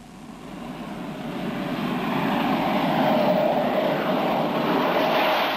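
Jet aircraft engine noise, a Hawker Hunter's, swelling up over about the first two seconds and then holding steady as a dense rushing noise with a steady hum running through it.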